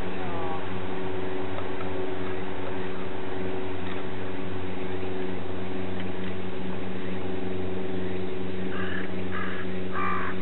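Steady low droning hum with several constant pitches underneath, and near the end a quick run of three or four short harsh calls about half a second apart, a bird cawing.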